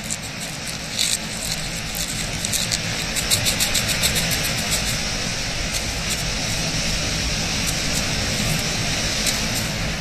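Steady noise with many scattered light ticks and rustles, growing a little louder over the first few seconds.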